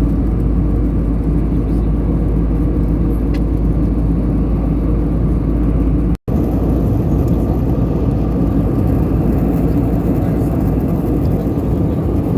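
Steady low rumble of a moving vehicle, cutting out for an instant a little past halfway.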